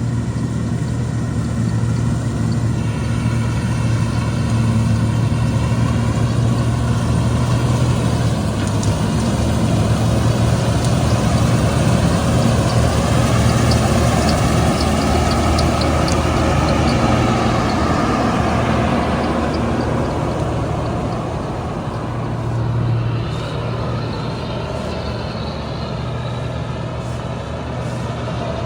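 Combine harvester running in a wheat field, with a steady heavy engine hum. The machine noise swells toward the middle and eases off later.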